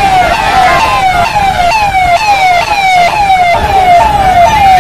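Electronic siren from a vehicle's roof-mounted loudspeaker, wailing in quick repeated falling sweeps, about two a second.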